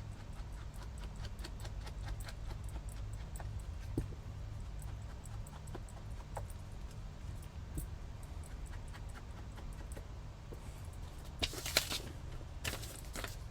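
Craft work on a desk: faint small taps and clicks of paper and tools being handled over a low steady hum, with two brief louder rustles near the end.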